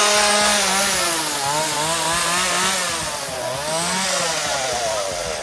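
Two-stroke gas chainsaw running loud, its engine pitch rising and falling again and again as the throttle is worked.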